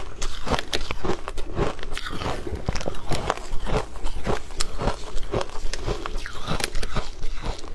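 Compacted shaved ice crunching as it is chewed, close to the microphone: a rapid, irregular run of crisp crunches, several a second.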